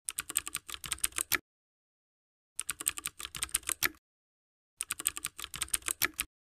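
Typing sound effect: rapid key clicks in three bursts of a second or so each, with dead silence between them, matching text being typed out letter by letter.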